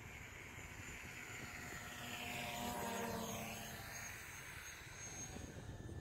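DJI Mavic Pro quadcopter on low-noise 8331 propellers flying past in sport mode: a propeller whine that swells to a peak about halfway through and fades as it goes, its pitch dropping as it passes.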